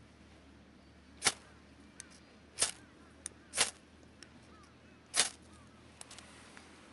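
Ferrocerium fire steel struck four times, each a short, sharp scrape, throwing sparks onto tinder to light a campfire, with a few faint ticks between the strikes.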